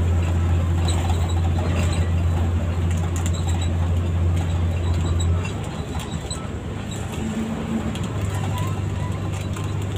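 Intercity bus heard from inside the cabin while driving: a steady low engine drone that drops away about halfway through, with a lower hum returning near the end, over light clicking and squeaking rattles from the bus body.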